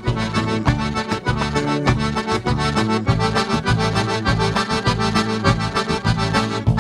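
Live band playing an instrumental dance intro led by a button/piano accordion (gaita), over a bass line and a steady percussive beat.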